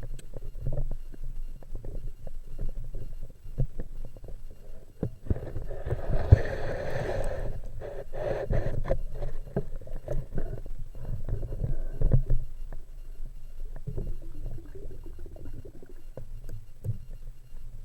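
Muffled underwater rumble from a spearfisher's camera, full of small knocks from handling and movement in the water, with a rushing burst, like bubbles or a breath, about five to eight seconds in.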